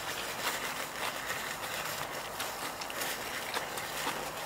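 Steady faint outdoor background hiss with a few soft mouth clicks from a person chewing.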